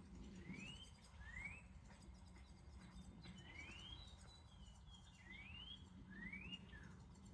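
Faint songbird calls: about five short rising whistles, spaced irregularly, over a low steady background rumble.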